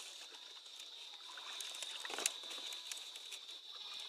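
Water sloshing and lapping around a small river boat, with a sharp knock a little over two seconds in, under a steady high-pitched whine.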